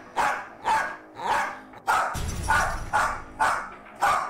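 Welsh Corgi barking over and over, about two barks a second, eight in all, without a pause: persistent, uncontrollable problem barking.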